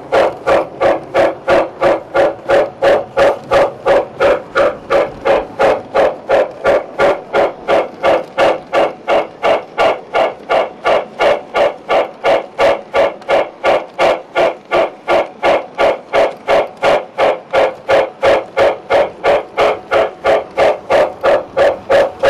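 O gauge model train running on its track, making a steady, even beat of about three pulses a second.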